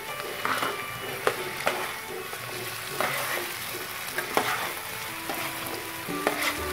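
Catfish pieces and sauce sizzling in a nonstick frying pan while a metal spatula stirs them, scraping and knocking against the pan in a series of short, sharp strokes over a steady sizzle.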